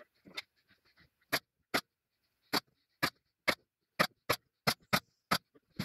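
Pneumatic nail gun firing about a dozen nails, one at a time, into the timber of wooden beehive frames. Each shot is a sharp single crack, at irregular intervals that come quicker in the second half.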